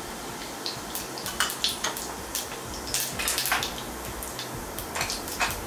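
Cumin seeds frying in hot oil for a tempering: a steady sizzle broken by many irregular sharp crackles and pops.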